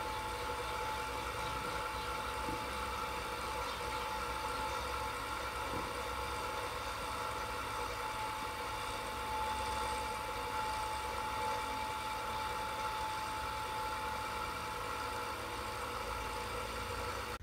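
Electric pedestal fan running with a steady hum and a fixed whine that does not change.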